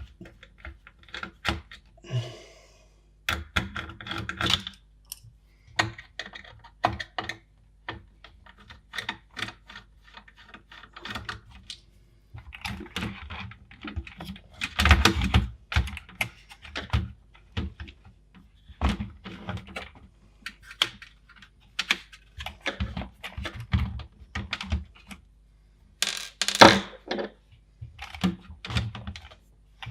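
Irregular clicking, tapping and knocking of hard plastic computer parts being handled and fitted together, with louder knocks about halfway through and near the end.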